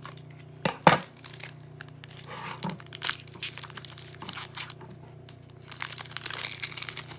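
Foil wrapper of a trading card pack crinkling and tearing as it is opened, with irregular sharp crackles, a loud snap about a second in and a longer run of crinkling near the end.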